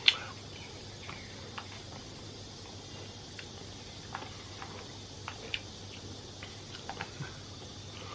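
Scattered small clicks and taps, a few seconds apart, over a steady low hum: the light sounds of eating and handling takeout food and its packaging.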